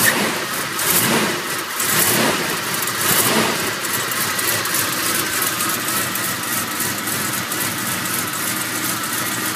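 Ford 460 big-block V8 with a lumpy cam, revved a few times in the first few seconds, then running at a steady idle.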